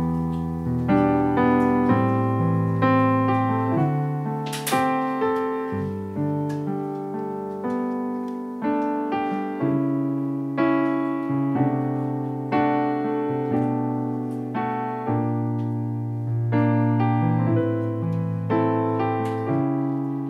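Slow, soft piano music: chords struck and left to ring out, a new one about once a second.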